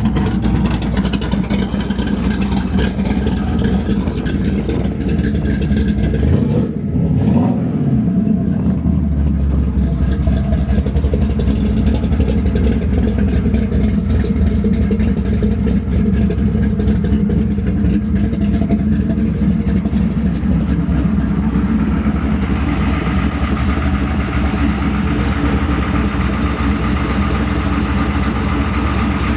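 A 500-horsepower 406 small-block Chevrolet V8 running through long-tube headers and dual exhaust, with the remote exhaust cutouts being closed. It is revved once about seven seconds in, then holds a steady fast idle that turns brighter and rougher-toned for the last several seconds.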